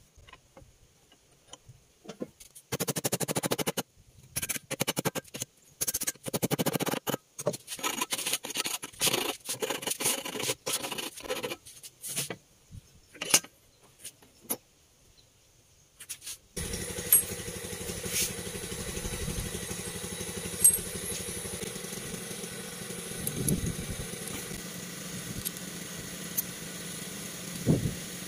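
Irregular scraping and clattering strokes of hand work on a small steel part at a bench vise. About 16 seconds in, these give way to a steady motor-like hum with a few sharp clicks.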